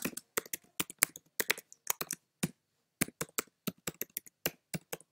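Typing on a computer keyboard: a quick, irregular run of key clicks, with a short pause about two and a half seconds in.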